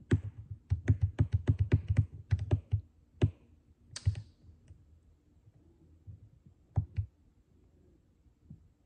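Computer keyboard keys clattering in a quick run of taps for about three seconds, then a few scattered key clicks.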